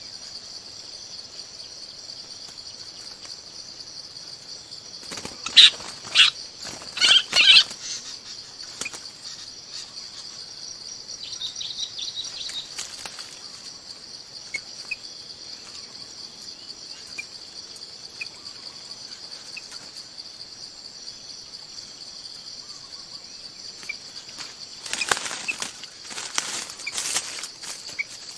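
Bulbul (Vietnamese chim bông lau) calling: a few loud, sharp notes about five seconds in, then another cluster near the end, over a steady high insect drone.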